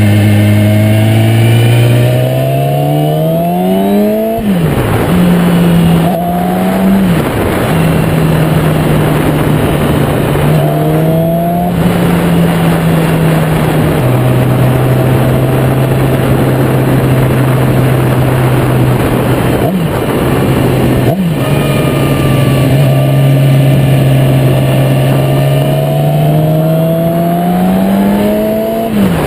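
Yamaha YZF-R6 inline-four engine pulling through the gears on a break-in ride. Its pitch climbs and then drops sharply at each upshift, several times, with a steady cruise in the middle. Heavy wind noise buffets the tank-mounted microphone over it.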